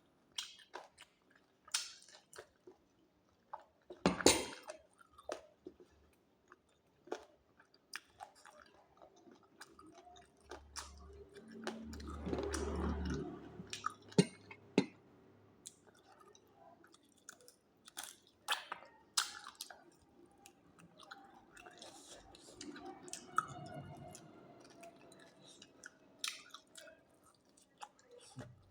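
Close-up chewing and biting of roast chicken: wet smacking with scattered sharp crunches and clicks, one louder crunch about four seconds in.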